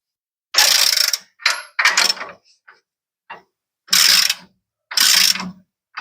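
Socket ratchet clicking in short strokes while U-bolt nuts on the van's rear axle are cranked down, about five strokes with a pause in the middle.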